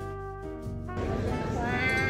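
Background music for about a second, then the noise of a busy restaurant and a woman's long, drawn-out excited exclamation near the end.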